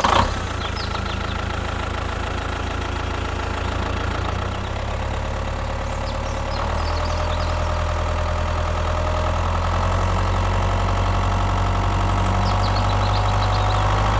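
Small engine running steadily, its low hum growing a little louder about six and a half seconds in.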